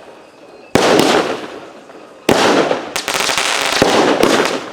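Multi-shot consumer firework cake ('Lockdown') firing shot after shot. There is a sharp bang less than a second in and another about halfway, then several more close together near the end, each fading away over about a second.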